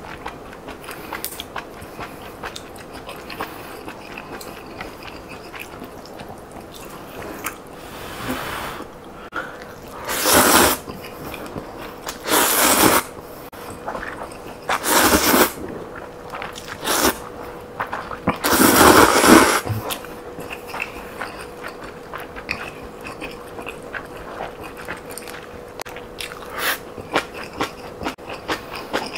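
Close-miked eating of white champon noodles: four loud slurps of noodles in the middle, with quiet chewing and small mouth clicks between them.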